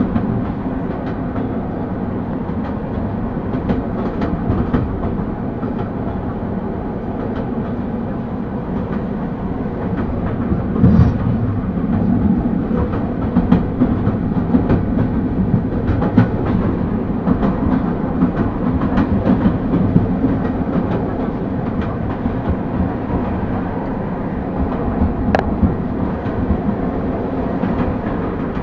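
EP2D electric multiple unit running at speed: a steady rumble of the wheels and running gear on the rails, with scattered clicks as the wheels pass over rail joints. It gets a little louder about a third of the way through.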